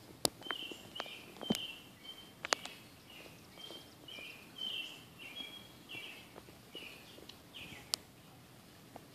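A bird singing a string of short, high chirps, with scattered sharp clicks, the loudest in the first three seconds.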